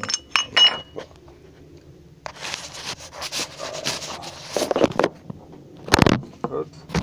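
A few light metal clinks with a brief high ring, then rubbing and scraping as the camera is picked up and moved, and a sharp knock about six seconds in.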